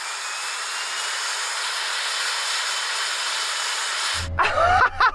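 Rimac electric car's cooling fans spooled up to full speed: a steady rushing hiss with a whine that rises in pitch and then holds, like a jet plane about to take off. It cuts off suddenly about four seconds in, and a short pitched, voice-like call follows.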